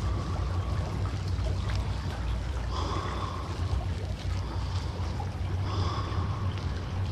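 Seawater lapping and splashing along a moving boat's hull over a steady low rumble, with three short faint tones, about three seconds apart.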